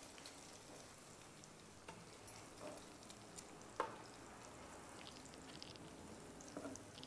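Faint sizzling of hot frying oil as fried prawns are lifted out of a wok with metal tongs, with a few light clicks, the loudest about four seconds in.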